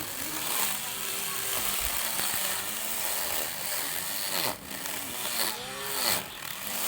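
Small lawn mower's motor running with a whine whose pitch keeps sagging and recovering, most sharply twice near the end.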